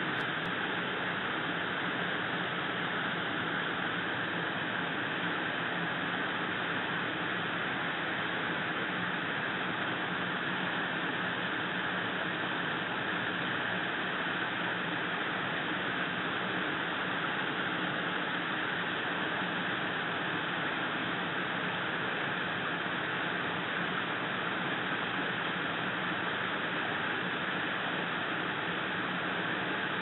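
A steady, even hiss with no distinct sounds in it.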